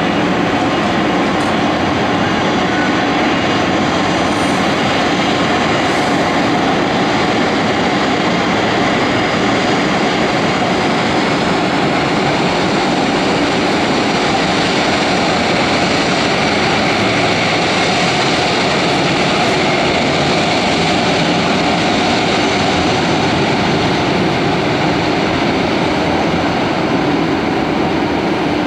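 Airbus A330-200 jet engines running at taxi power: a steady, loud rush that keeps an even level throughout, with faint steady high tones over it.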